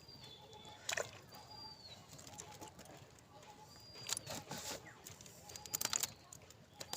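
A bird calling again and again with short arched whistles, over a few sharp clicks and knocks around the boat.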